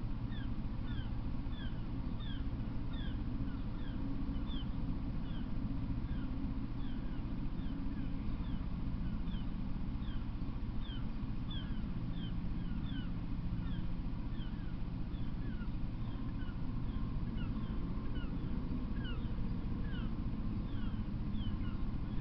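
Outdoor ambience with no train passing: a steady low rumble under a repeated high, short chirp that falls in pitch, about two chirps a second.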